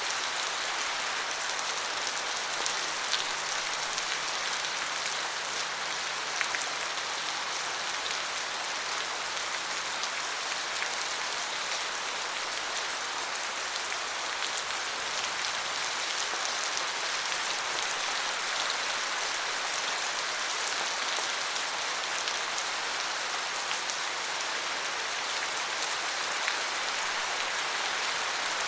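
Steady rain falling, an even hiss of many small drops with faint scattered ticks of individual drops hitting a surface.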